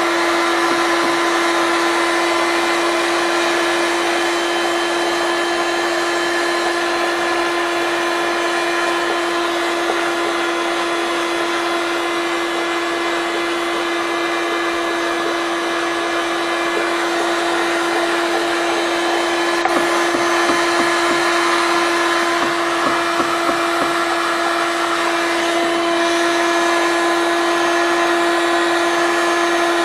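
Electric heat gun running steadily, its fan giving a constant hum with a steady whine. A steel scraper scratches softened old varnish off the wooden step, with a few scraping strokes standing out about two-thirds of the way in.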